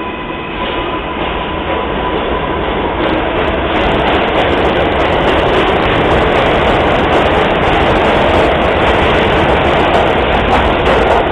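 New York City subway 6 train pulling out of the station. A steady whine fades in the first couple of seconds, then the rumble of wheels on track builds and stays loud.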